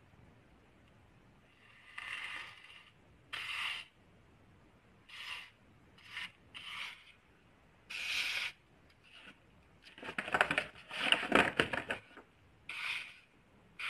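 A hand sweeping and pressing a heap of crushed naphthalene (mothball) powder on paper: a series of short gritty swishes, then a quick run of louder crackling scrapes about ten seconds in.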